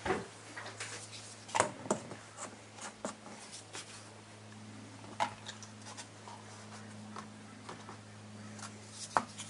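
Light clicks and taps of small paper cups and a wooden stir stick being handled while two-part casting resin is poured together, over a steady low hum.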